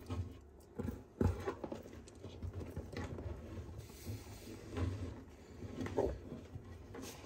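Irregular knocks and scrapes from a sulcata (African spurred) tortoise, a few short hard knocks scattered through the stretch, the clearest about a second in.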